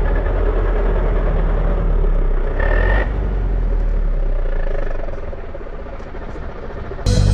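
Jeep driving along a rough dirt track: a steady low rumble of engine and road noise, with a short high tone about three seconds in. The rumble eases off about five seconds in.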